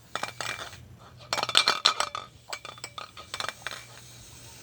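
Sharp metallic clinks and rattles from handling a can of paint, thickest about a second and a half in, then scattered taps that die away near the end.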